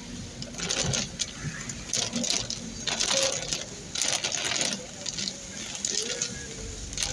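Windscreen wipers sweeping a rain-soaked windscreen during heavy rain, a swish about once a second, heard from inside the car over a low running hum.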